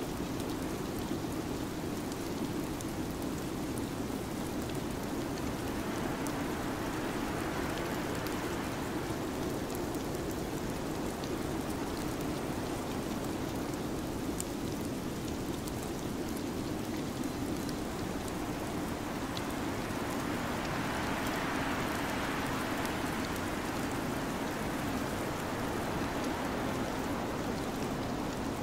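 Steady rain-like hiss of a winter-storm ambience with a low rushing band underneath. It swells brighter twice, like gusts of wind, and faint scattered ticks run through it.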